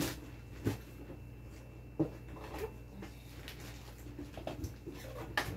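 Kimchi-making handling sounds: gloved hands rubbing chili seasoning into salted napa cabbage in a plastic basin and pulling cabbage from a plastic bag, with soft rustling and three short knocks. A low steady hum runs underneath.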